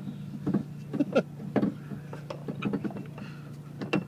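Scattered light clicks and knocks of a jack-stand hat being handled and fitted into a car's jacking point, over a steady low hum.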